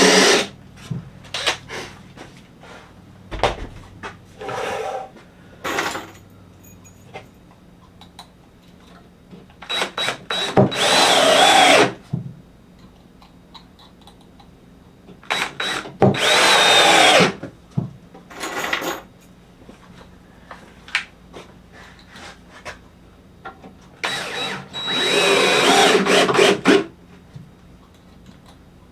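Power drill driving screws into 2x4 lumber in about six separate runs of one to three seconds, the motor pitch sagging and rising as each screw bites, with small knocks of handling wood between them.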